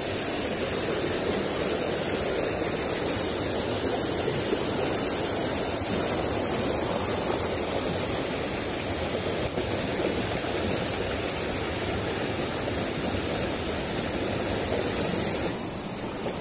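Rushing water from a small cascade tumbling over boulders in a rocky mountain stream, a steady sound that drops a little quieter about a second before the end.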